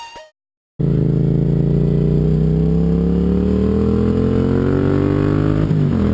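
Music fading out, a brief gap, then a Yamaha FZ-07 motorcycle's parallel-twin engine with an Akrapovič full exhaust pulling steadily under way, its pitch rising slowly as it accelerates. Near the end the pitch drops suddenly as the rider shifts up.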